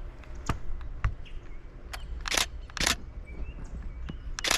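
Canon Rebel T7i DSLR shutter firing three short, loud bursts of frames, the last near the end, with a few lighter clicks before them.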